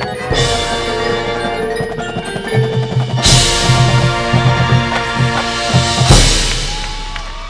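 High school marching band playing its field show: sustained band chords over a drum pattern and front-ensemble mallet keyboards. It builds to a loud full-band hit about three seconds in, then a louder final hit about six seconds in that rings out.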